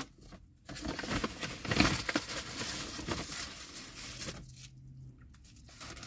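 Takeout food packaging being handled: the paper wrapping crinkles and rustles and the plastic container lid knocks and clicks. The rustling dies down after about four and a half seconds.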